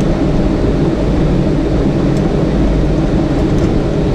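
Steady, loud low rumbling noise, with a few faint light clicks about two and three and a half seconds in.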